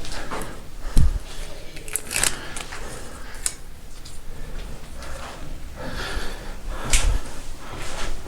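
Footsteps with scattered knocks and scuffs, and heavy thumps about a second in and again near the end.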